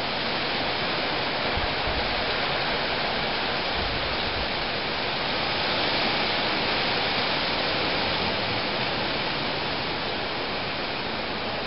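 Steady rushing of heavy rain and gusting wind in tropical-storm conditions on the edge of a hurricane.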